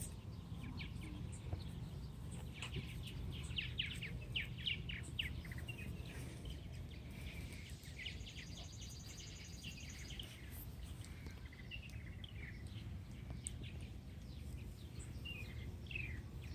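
Wild birds singing in runs of quick, falling chirps, with a brief fast high trill about halfway through, over a steady low rumble.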